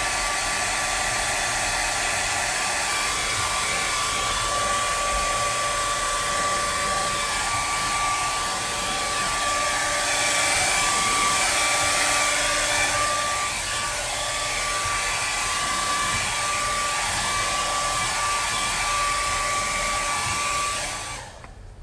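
Handheld hot-air dryer blowing steadily, with a steady whine over its fan noise, drying a fresh coat of leather dye; it is switched off about 21 seconds in.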